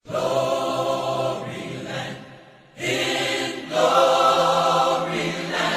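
Gospel choir singing long, held chords in two phrases, the second starting about three seconds in.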